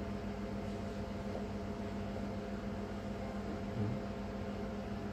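Steady machine hum with a constant low tone, and a soft low bump about four seconds in.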